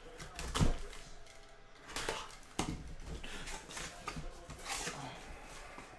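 Sealed cardboard shipping case being handled and opened: a thump about half a second in, then scattered scrapes and knocks of cardboard.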